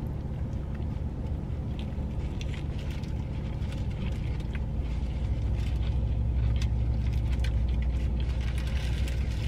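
Chewing and wet mouth clicks from eating a breaded chicken sandwich, over the steady low rumble of a car idling, which swells a little in the second half.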